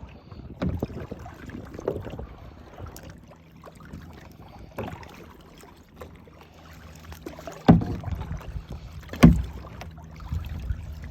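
Kayak paddling picked up by a phone lying on the kayak: uneven paddle strokes and water swishing against the hull, with a muffled rumble and two sharp knocks in the second half.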